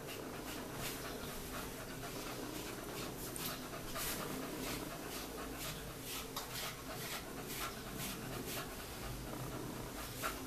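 Cocker spaniel panting in quick, rhythmic breaths, over a faint steady hum.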